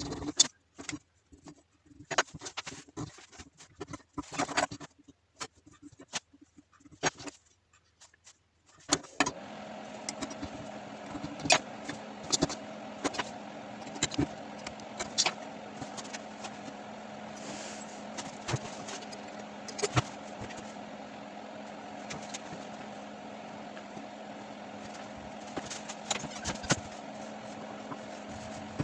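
Scattered knocks and clatter of parts being handled, then, from about nine seconds in, an electric milling machine running steadily with sharp clicks over it as it cuts slots in textolite.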